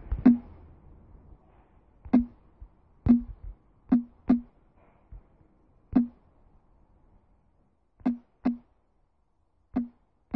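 Samsung Galaxy S5 on-screen keyboard key presses: about ten short tapping clicks at an uneven pace as a password is typed.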